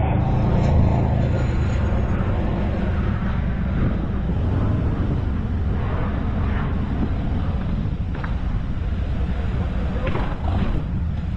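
Car driving at speed: steady road and engine noise with a deep rumble.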